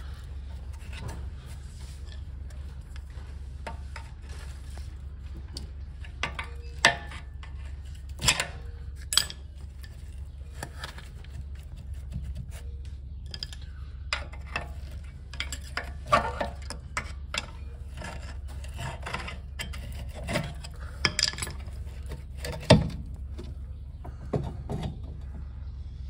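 Brake caliper being pried and worked off a disc brake rotor: scraping and clanking of metal parts with several sharp knocks, the loudest near the end, over a steady low hum.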